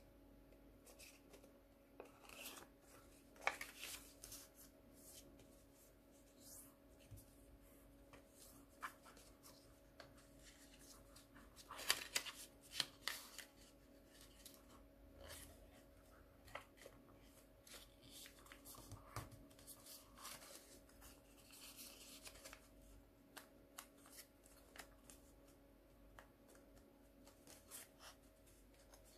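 A sheet of origami paper being folded and creased by hand: faint rustling and crinkling with sharper crackles, a few louder ones near the start and around the middle, over a steady low hum.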